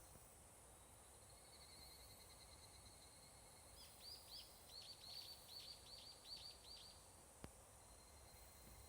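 Higurashi (evening cicada, Tanna japonensis) calling faintly: a run of about a dozen quick high notes, each dropping in pitch, lasting about three seconds in the middle. Under it is a steady faint high trill from more distant insects.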